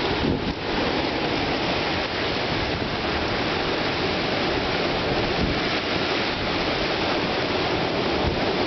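Strong storm wind blowing steadily, with gusts buffeting the microphone as a low rumble.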